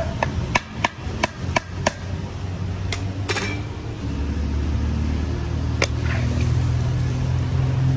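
A run of sharp knocks, several in the first two seconds and a few more scattered after, then a low steady hum that builds from about four seconds in.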